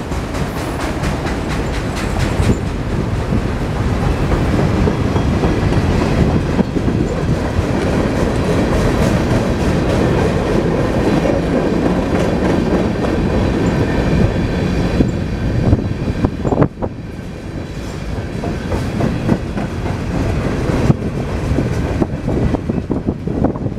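Mixed freight cars (autoracks, covered hoppers and boxcars) rolling past on a CN manifest train: a steady rumble of steel wheels on rail with clickety-clack over the rail joints. A single sharp clank comes about two-thirds of the way through.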